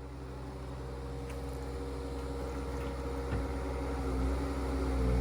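Skid steer engine running steadily, growing louder toward the end, with a light knock about three and a half seconds in.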